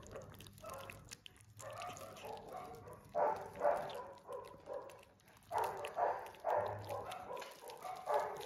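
Newborn puppy crying in repeated short bursts while it is fed milk formula from a syringe.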